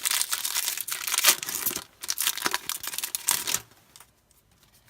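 Crinkly foil wrapper of a Pokémon card booster pack being torn open and crumpled by hand, a dense crackle that stops about three and a half seconds in.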